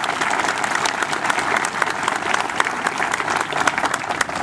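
Audience applauding, a dense, steady patter of many hands clapping at once.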